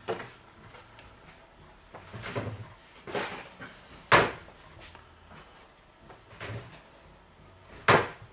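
A handful of separate knocks and thumps of kitchen handling, the two loudest sharp knocks about four seconds in and near the end.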